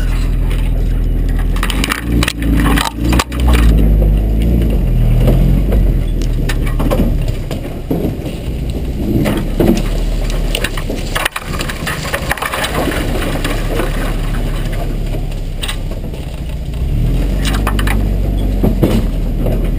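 1986 Toyota pickup's engine running at low speed as the truck crawls through brush, its pitch rising and falling with the throttle. Branches and brush crack and scrape against the truck throughout, with a sharp crack about eleven seconds in.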